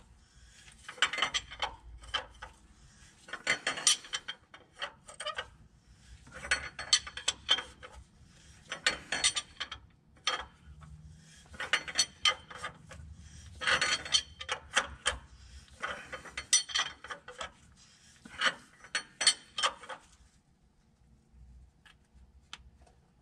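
Ratchet wrench clicking in short bursts about every two seconds as it turns the forcing screw of a rear main seal installer, pressing a new rear main seal onto the crankshaft of an International DT466E diesel. The clicking stops about 20 seconds in.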